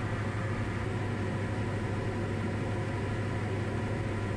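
Diamond DA40 single-engine light aircraft's engine and propeller droning steadily in cruise, heard from inside the cockpit.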